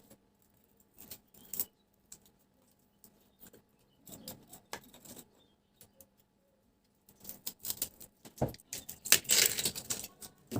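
Light clicking and scraping of a hand cutting tool working on an electric pump motor's stator winding, cutting the lacing thread that binds the coils. Sparse small clicks at first, growing busier and louder over the last three seconds, with one dull knock partway through that rise.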